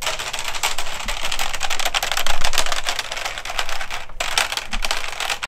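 Fast, continuous typing on a computer keyboard: a dense stream of clicks, with a brief pause about four seconds in.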